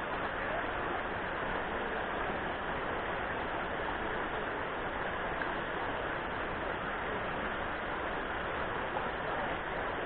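Shallow rocky river rapids: water rushing steadily over stones.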